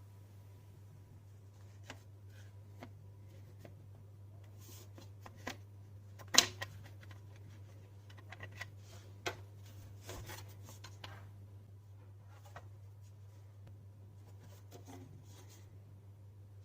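Scattered light clicks, taps and rubbing of small hard plastic parts being handled during a keyboard teardown, with one sharp click about six seconds in, over a steady low hum.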